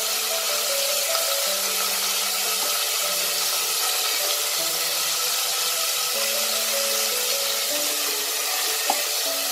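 Paneer cubes sizzling steadily as they fry in hot vegetable oil in a deep pan, turned with a wooden spatula, over soft background music with slow held notes. One short knock near the end.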